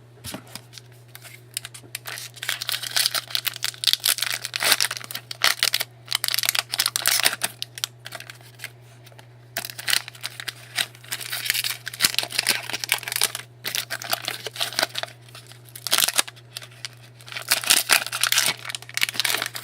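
Foil trading-card pack wrappers being torn open and crinkled, in irregular bursts of crackling, with a steady low hum underneath.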